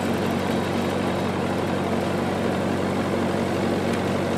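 Generator engine running at a steady, unchanging speed, a constant low hum.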